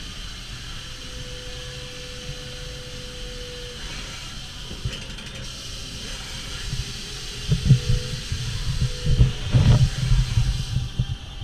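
Doosan Lynx 220LMC CNC lathe machining a 7075 aluminium blank under flood coolant: a steady hiss of coolant spray, with a thin steady tone for a few seconds near the start. About two-thirds of the way in it turns to louder, uneven low rumbling and knocks.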